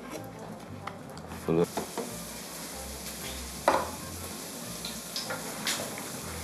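Pork chops frying in a pan, a steady sizzle, with a few sharp knocks of a spoon against a metal pot, the loudest about three and a half seconds in.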